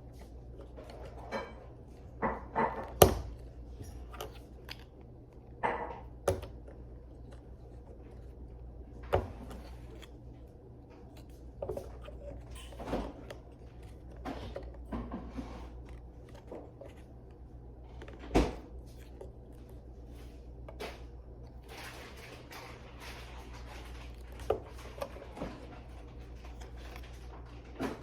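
Small plastic toy-robot parts clicking and knocking together as pieces are handled and pushed into place, in irregular taps with two louder knocks, about 3 and 18 seconds in, over a steady low hum.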